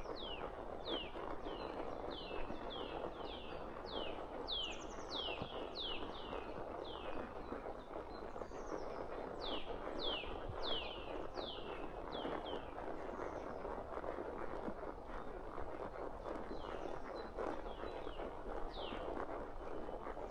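A songbird calling in quick series of short, high notes that each fall in pitch, pausing now and then. Underneath is the steady shuffle and clop of a horse walking on a forest trail.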